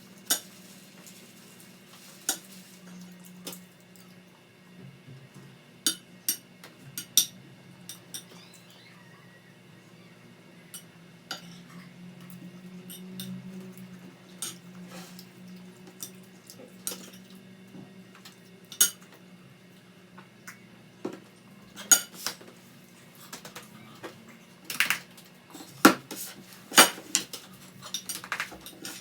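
Eating utensils clinking and scraping against plates and bowls in scattered sharp clinks, coming thicker and louder near the end.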